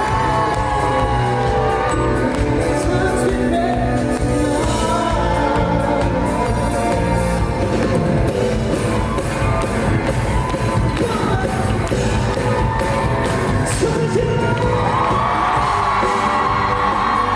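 A pop-rock band playing live with a lead vocal, loud and continuous, with a long held sung or melodic line near the end.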